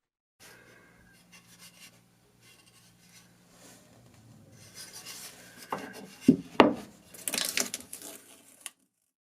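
Scraping and rubbing strokes from hand-tool work, with two sharp knocks a little past six seconds in, over a faint steady hum in the first part.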